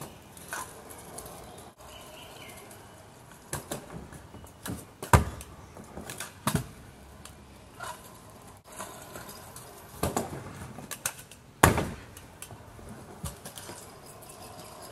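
Stunt scooter clattering on concrete: a string of sharp clacks and slaps from the deck and wheels hitting the ground. The loudest comes about five seconds in and another near twelve seconds.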